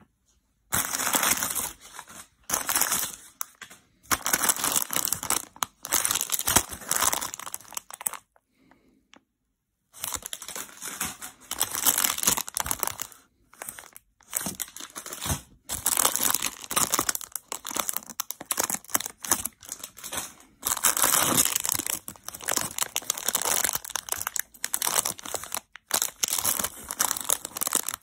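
Crumpled packing paper and plastic sweet bags crinkling and rustling as they are handled in a cardboard box, in stop-start bursts with a silent pause of about two seconds roughly a third of the way in.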